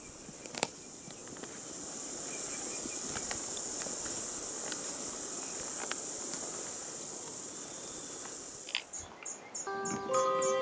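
Insects chirring in a steady high drone, with a few faint clicks. Near the end the drone stops, a quick run of short high chirps follows, and background music comes in.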